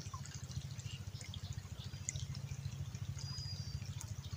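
Open-air river ambience: a steady low rumble of wind on the microphone, with faint water trickling around the wooden boat and a few small high chirps.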